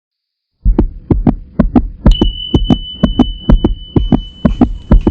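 Heartbeat-like throbbing pulse in paired beats, about two pairs a second, starting just over half a second in, with a steady high tone joining about two seconds in.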